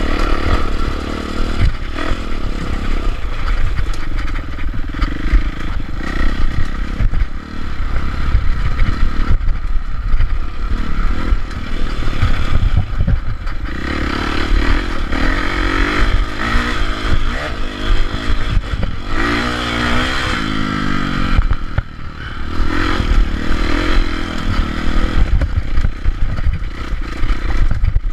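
Dirt bike engine revving up and down as it is ridden hard over a rough trail, with a sharp rising rev about two-thirds of the way through. Rattling and knocks from the bike bouncing over bumps run under it.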